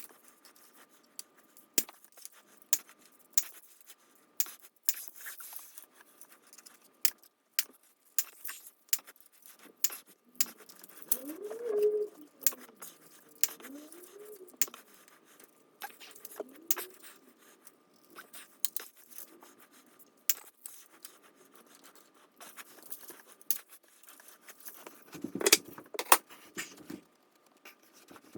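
Irregular sharp metallic clicks and clinks of tools and bicycle parts being handled during disassembly. A few short rising-and-falling tones come about halfway through, and a louder flurry of clinks comes near the end.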